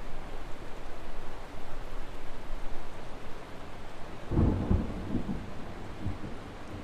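Steady rain hiss. About four seconds in, a low thunder rumble breaks in and trails off in a few smaller rolls.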